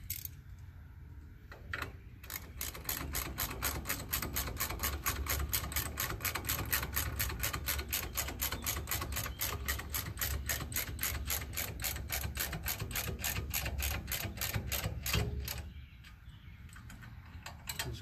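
Hand ratchet clicking steadily as the wheel-bearing adapter bolts are spun in before being snugged down, about five clicks a second, stopping about fifteen seconds in.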